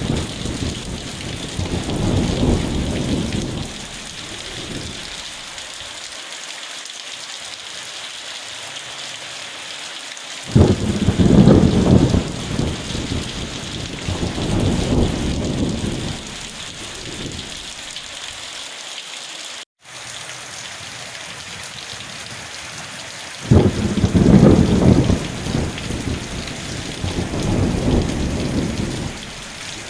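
Steady rain hissing throughout, with rolling thunder: a rumble dies away at the start, and two more peals break in suddenly, about a third and three-quarters of the way through, each rumbling in swells for several seconds. All sound drops out for an instant about two-thirds through.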